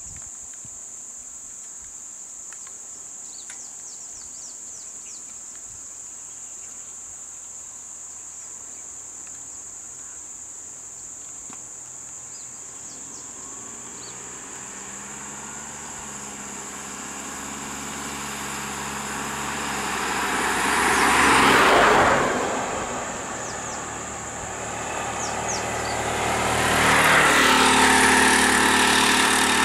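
Insects buzzing steadily in a high pitch throughout. From about halfway, vehicle engines approach: a van swells past at its loudest about two-thirds of the way through, then another engine draws near and keeps running close by near the end.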